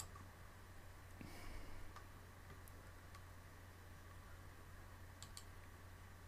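Near silence over a steady low hum, broken by a few faint computer mouse clicks, two of them close together near the end.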